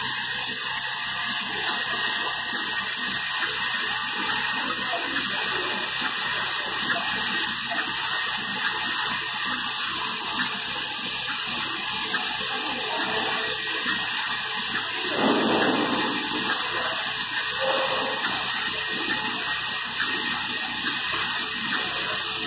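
Syringe assembly machine running: vibratory bowl feeders shaking loose plastic syringe parts, together with the rotating transfer wheels, make a steady, even rattling hiss. A brief louder swell comes about fifteen seconds in.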